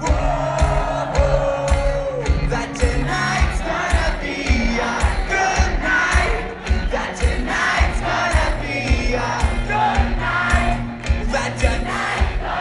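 Pop-punk rock band playing live and amplified, with a steady, evenly spaced kick-drum beat under the guitars and vocals, and the concert crowd singing and shouting along.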